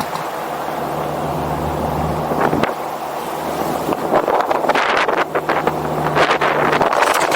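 Wind buffeting the microphone over the steady low hum of a vehicle engine; the buffeting turns gustier and more crackly about four seconds in.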